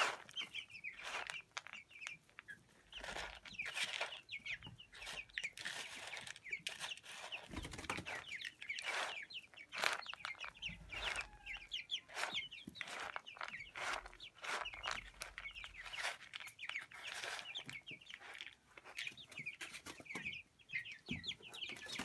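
Young broiler and Sasso chickens peeping continuously in many short falling calls, over the rustle and clatter of feed pellets being stirred by hand in a bowl.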